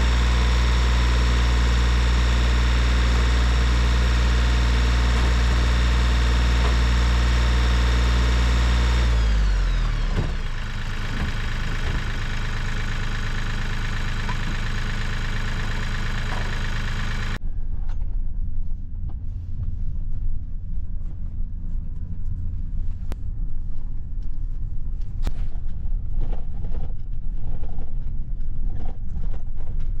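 Kubota tractor's diesel engine running steadily at high revs, then throttling down about nine seconds in, after the loader has set a water tote in a pickup bed. From about seventeen seconds in, a pickup truck driving on a rough snowy road, heard from inside the cab, with knocks and rattles.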